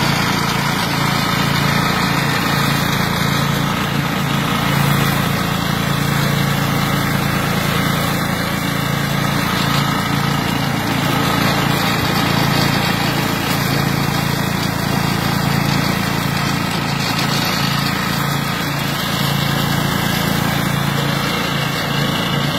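Engine of a flail mower running steadily at an even speed, with a constant low hum and no pauses or changes in pitch.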